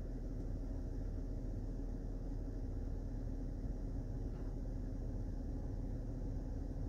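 Steady low rumble and hum of a Chrysler 300's cabin. No music plays: the radio has lost all sound after a software update, though it shows a station tuned.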